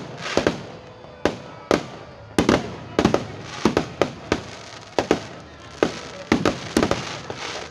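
Fireworks shells bursting in rapid, irregular succession: sharp bangs about two or three a second, each trailing off in an echo.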